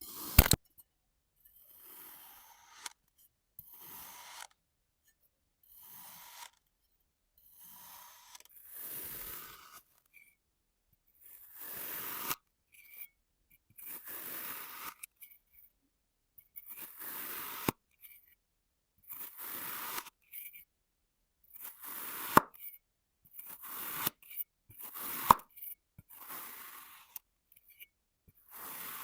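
Kinetic sand being cut: a blade slicing through packed sand in a series of short, crunchy scraping strokes, about one every second or two, with a few sharp clicks among them.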